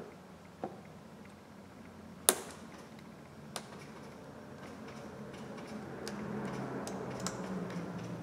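Small sharp clicks and taps of hand tools against metal phone parts on a workbench: a few separate clicks, the loudest a couple of seconds in, then a quicker run of light ticks near the end.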